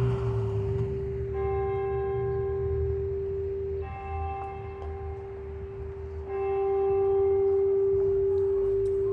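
Church bell tolling slowly: three strokes about two and a half seconds apart, each ringing on into the next.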